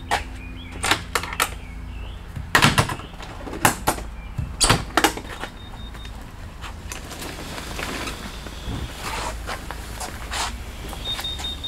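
Clicks, knocks and snaps of latches, clasps and panels being undone by hand on an Opus Air Lite pop-up camper trailer as it is opened, loudest in a cluster of sharp snaps a few seconds in. A short high electronic beep sounds briefly in the middle and again near the end.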